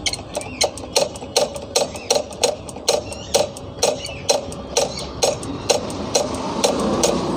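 Rapid, even mechanical clicking, about four clicks a second, each with a short ring. Near the end the clicks fade and a steady rushing noise swells.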